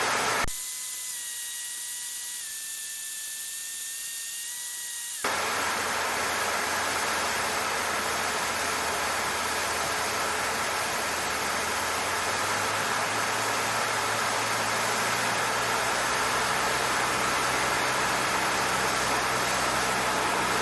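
Cessna 152 cabin noise heard through the headset intercom: a thin hiss with faint steady whines for the first few seconds, then, from about five seconds in, the steady drone of the four-cylinder engine and airflow.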